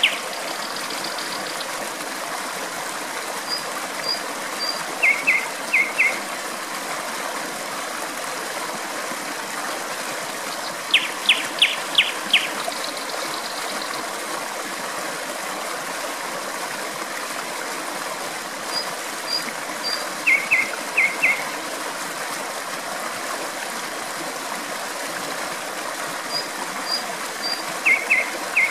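Steady rush of flowing stream water, with a nightingale singing short phrases of quick repeated notes every few seconds. The loudest phrase is a run of about five notes near the middle.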